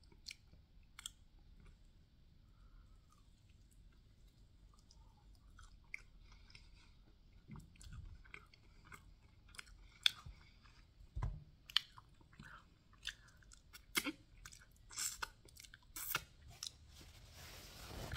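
Quiet close-mic chewing of a sauced chicken wing: wet smacks and small clicks, sparse at first and more frequent in the second half. Near the end a rustling comes in as the tripod is moved.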